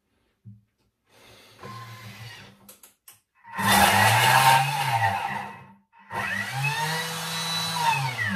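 Thermomix TM6 motor run in two short bursts at top speed (speed 10), one direction and then the other, each whining up and back down in pitch. The blade is flinging the leftover bread dough off itself onto the wall of the mixing bowl.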